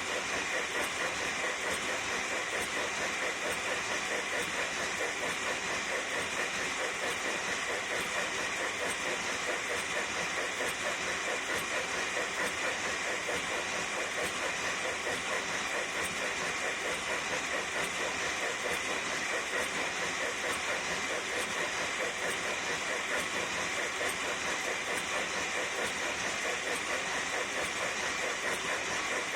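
USA Trains FEF-3 G scale model steam locomotive running steadily, a rapid, even rhythmic hiss that does not change.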